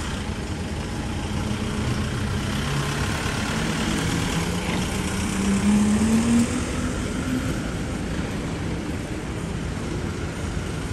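A road vehicle's engine rising in pitch as it accelerates past, loudest about six seconds in, over the steady noise of city street traffic.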